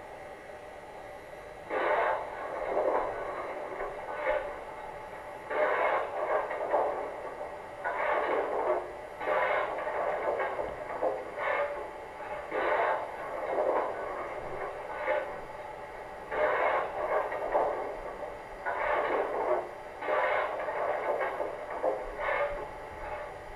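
Coal-shovelling sound effect from the Zimo MX699 sound decoder of an LGB model steam locomotive, played through the model's loudspeaker: irregular scraping shovel strokes, about one a second, starting about two seconds in over a faint steady hiss.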